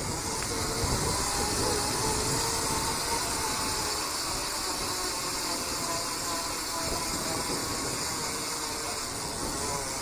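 Steady rushing wind and road noise on an action camera's microphone while riding a bicycle, with a faint steady hum underneath.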